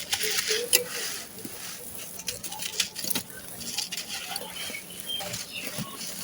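Dry sand-cement chunks crumbling and crunching: a dense run of sharp crackles and snaps over a gritty rustle, with a few louder cracks.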